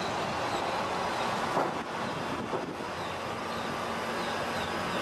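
Steady background rumble and hiss, with a couple of faint clicks.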